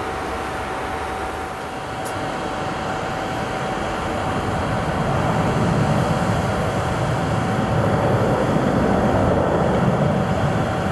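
Airbus A319-132's twin IAE V2500 turbofans at takeoff thrust as the airliner climbs out: a steady jet roar with a constant whine above the rumble, growing a little louder about halfway through.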